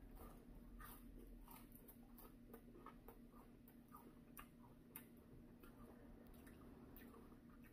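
Faint chewing of crispy fried chicken: soft, irregular crunches and mouth clicks over a low steady room hum.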